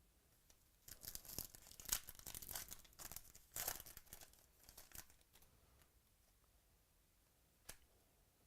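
Trading-card packaging being crinkled and torn by hand, a few seconds of crackling and tearing, then a single sharp click near the end.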